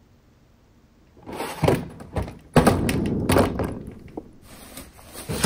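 Heavy luggage bumping and sliding on wooden stairs: a string of heavy thumps and scrapes starting about a second in.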